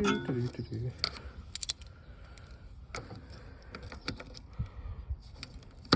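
Scattered light metallic clicks and clanks from hand work on a truck's battery, the sounds of fitting and fastening a battery and its terminals.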